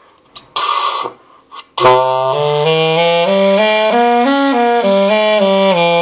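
Homemade PVC clarinet, a cylindrical plastic tube played with a saxophone mouthpiece and reed, playing a run of stepped notes that climbs and comes back down, reedy and steady. It is blown with a tense jaw, so the notes stay under control without jumping to the fifth. A short breathy hiss comes just before the first note.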